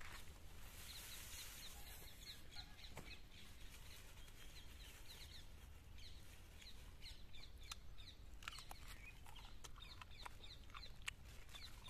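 Faint bird chirping: a steady run of short, high, falling chirps, with a few sharp clicks mixed in.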